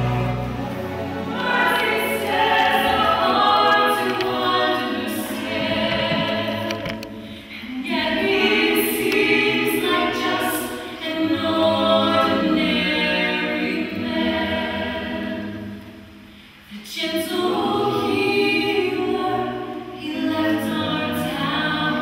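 A group of voices singing a hymn a cappella, in long phrases with short breaks about seven and sixteen seconds in.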